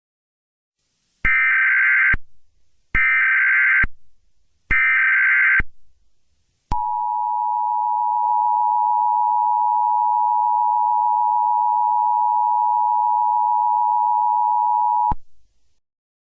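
Emergency Alert System header: three short bursts of SAME data tones, each just under a second, followed by the two-tone EAS attention signal held steady for about eight seconds before cutting off. It marks the start of an emergency alert, here a heat advisory.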